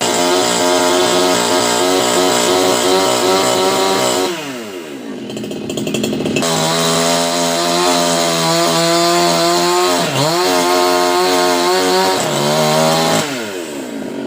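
Two-stroke chainsaw running at high revs while cutting a silk-cotton tree. It eases off about four seconds in and revs back up two seconds later, dips briefly around ten seconds, and drops off again near the end.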